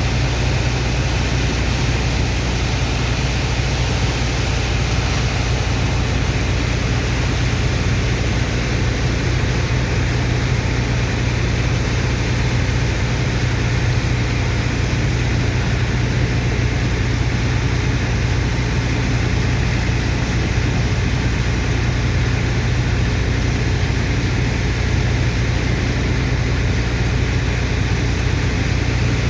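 Sand dredger's heavy engine and water pump running steadily while unloading sand: a deep, unchanging drone under a constant rushing noise.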